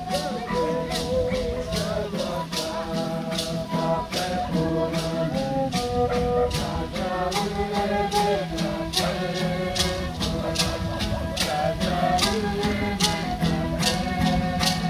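Guarani music: a small violin playing a melody over a strummed guitar, with a steady beat of sharp strokes a few times a second.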